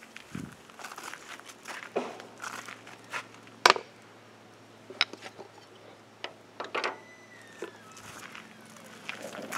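Irregular crunches and sharp clicks, one louder snap about three and a half seconds in: footsteps shuffling on gravel beside a crackling campfire.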